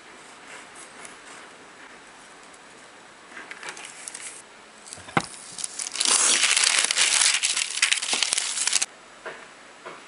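A sheet of thin translucent paper being handled and smoothed flat, rustling and crinkling loudly for about three seconds before stopping abruptly, with a single knock on the table just before it.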